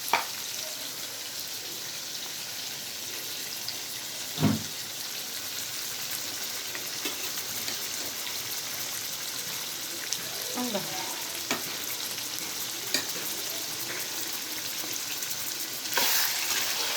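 Food sizzling steadily in a hot pan, with a few sharp clicks of a spoon or ladle stirring against the pan. The stirring gets busier and louder near the end.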